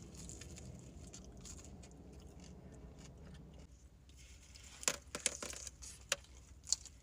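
Close-miked eating of crisp-fried birria tacos: soft chewing, then a few sharp crunches in the second half.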